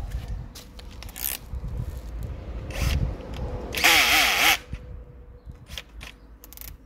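Tools and metal parts being handled while a sprayer pump is reassembled: scattered clicks and knocks, and about four seconds in a short loud rasping burst with a wavering whine.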